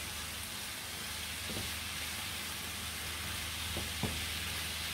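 Chicken pieces frying in curry spices in a frying pan, sizzling steadily while a wooden spatula stirs them, with a few light knocks of the spatula against the pan.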